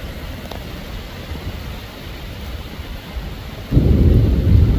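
Heavy rain falling steadily, then a little over three and a half seconds in a loud, deep rumble of thunder breaks in and keeps rolling.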